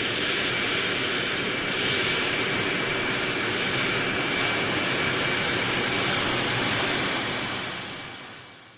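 Learjet business jet taxiing, heard from outside: a steady jet engine whine with a rushing roar and two high whistling tones held at a constant pitch. It fades away near the end.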